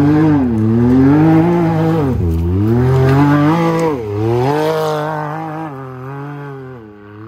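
Can-Am Maverick X3 side-by-side's three-cylinder turbo engine revving up and down several times as it drives past close by, then fading as it moves off.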